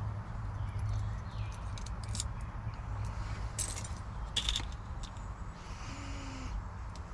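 Scattered small clicks and taps of lock cylinder parts and pins being handled during a rekey, over a steady low hum.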